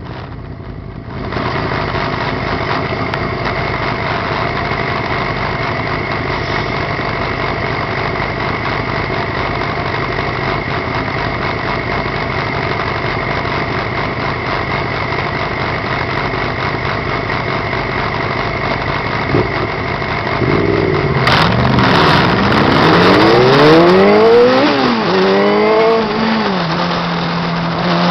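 Motorcycle engine idling steadily, then accelerating hard, its pitch rising and dropping back through several quick gear changes before settling into a steady cruise. Wind buffets the microphone as speed builds.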